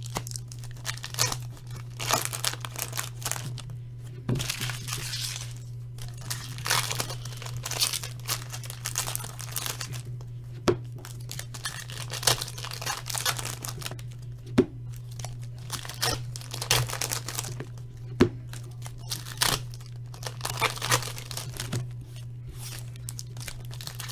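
Hockey card pack wrappers being torn open and crinkled, with cards handled in between, in a run of irregular rustling bursts and a few sharp clicks.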